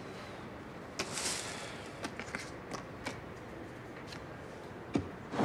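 Paper and cellophane rustling with small clicks as a note card is taken out of a bouquet's wrapping and handled, then a couple of soft thumps near the end.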